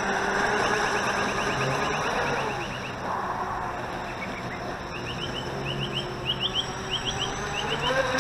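Volantex Atomic RC race boat's electric motor and drive whining out on the water, its pitch dropping about two seconds in and climbing again near the end as the boat comes back. Quick runs of high, rising chirps sound over it at the start and again in the second half.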